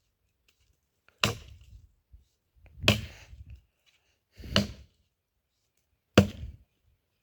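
Four steady, evenly spaced axe strokes biting into a log of braúna hardwood, one about every second and a half, each a sharp chop with a brief ring.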